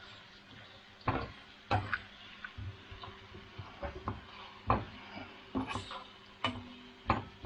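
A utensil stirring onion and garlic frying in a pan, knocking and clinking against the pan in irregular taps, about eight over the stretch.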